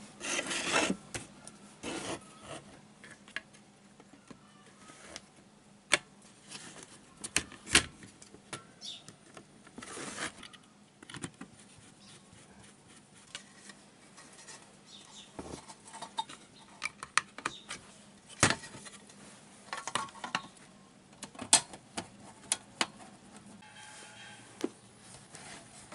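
Scattered clicks, taps and rubbing as a power supply unit is closed up after repair, its cover handled and fitted back on.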